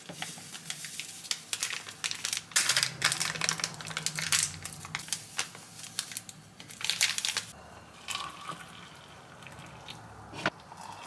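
Plastic instant-coffee sachets crinkling and rustling as they are squeezed and emptied into ceramic mugs. The crinkling stops about seven seconds in, and hot water is then poured from a small pot into a mug.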